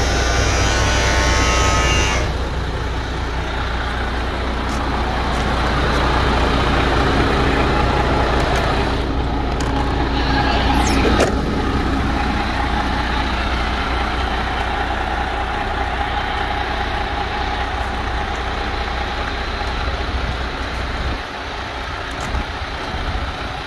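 MAN TGX 480 tractor unit's D26 inline-six diesel idling steadily, heard close to the truck, with a brief rising sweep about ten seconds in.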